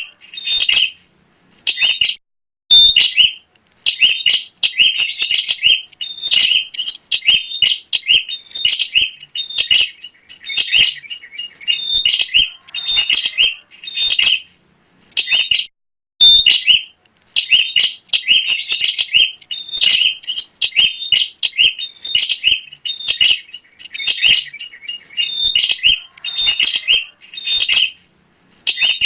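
Prinia (prenjak) singing vigorously: loud, rapid, high-pitched chirping phrases in bursts, broken by short pauses.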